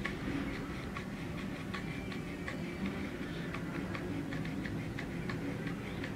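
A plastic grabber tool clicking irregularly, a few sharp clicks a second, as it is rubbed through a cat's fur, over a low steady rustle.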